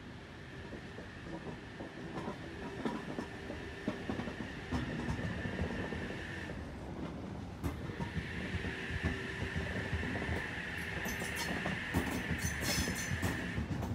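NSW TrainLink H set (OSCAR) electric multiple unit running across a rail bridge, its wheels clicking over the rail joints under a steady high squeal that drops out for about a second midway and comes back stronger. The clicks grow denser near the end.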